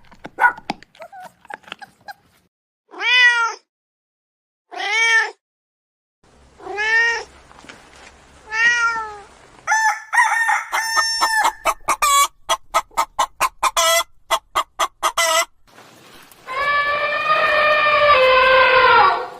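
A string of domestic animal calls: four short arched calls about two seconds apart, then a rapid run of clicks and chirps, then one long call lasting about three seconds near the end.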